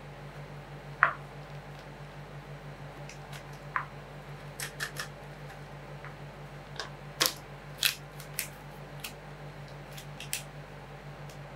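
Irregular sharp clicks and small cracks, about fifteen of them, loudest about a second in and twice more a little past the middle, over a steady low hum with a fast, even pulse.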